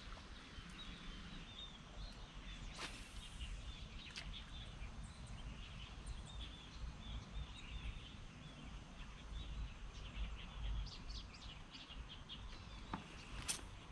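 Small birds chirping faintly and repeatedly over a steady low rumble, with a few sharp ticks, one about three seconds in and one near the end.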